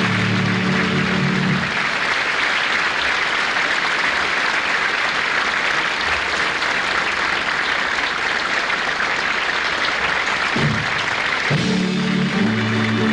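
Audience applauding steadily, while a band plays a short held chord at the start and again near the end.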